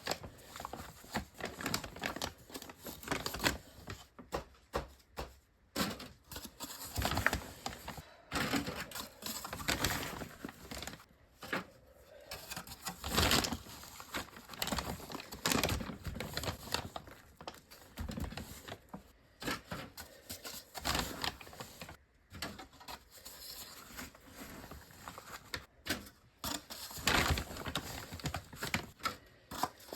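Irregular crinkling, rustling and tapping of hands handling things, in uneven short strokes with brief pauses.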